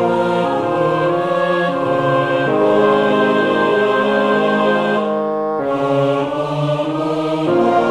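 Music: a slow duet for soprano and tenor voices in held notes over a small orchestra of oboe, bassoon, horn, strings and piano.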